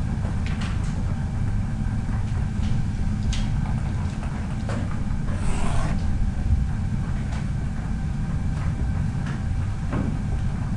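Pen writing on paper: short scratchy strokes, and a longer stroke about five to six seconds in as a line is drawn, over a steady low rumble.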